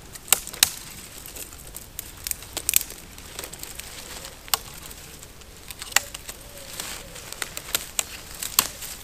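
Irregular sharp snaps and crinkles of small dry twigs and woodland debris being broken and handled to build a small campfire.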